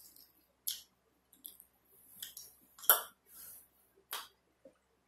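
Close-miked mouth sounds of eating: a string of short, wet smacks and clicks from chewing, about seven in five seconds, the loudest about three seconds in.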